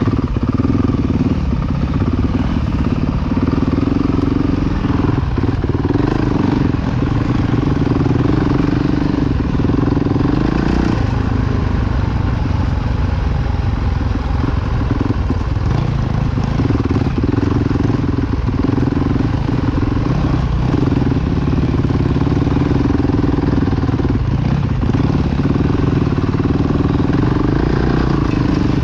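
Red Honda dirt bike's engine running at low trail speed, heard up close from the bike itself; the note holds fairly steady, dipping and picking up again with the throttle, most clearly about eleven seconds in. Occasional short knocks from the bike over the rough trail.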